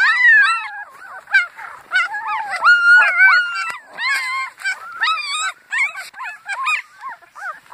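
Several young puppies howling and whining together: high, overlapping cries that rise and fall in pitch, one short call after another.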